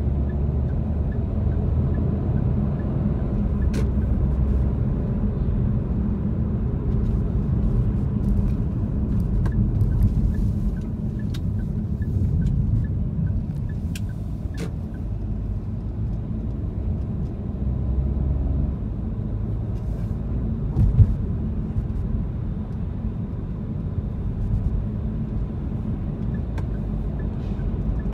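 Car driving in city traffic, heard from inside the cabin: a steady low rumble of engine and tyres on the road, with a few light clicks and one short thump about two-thirds of the way through.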